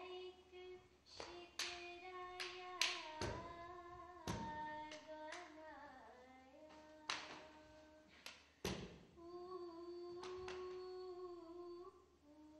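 A voice singing long held notes with slow slides between pitches, over irregular sharp percussive strikes that ring briefly.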